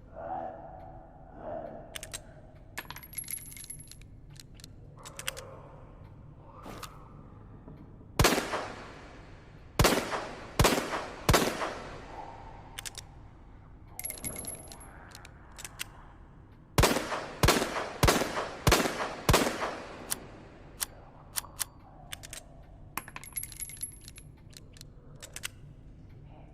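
SLS-60 revolver sound effect: clicks and light metallic rings of handling, then four gunshots (a single one, then three about 0.7 s apart). After more clicks comes a second run of five shots about 0.6 s apart, then further clicks and rings.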